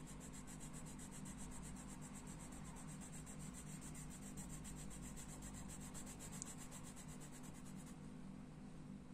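Faint scratching of a coloured pencil shading on a colouring-book page, over a steady low hum.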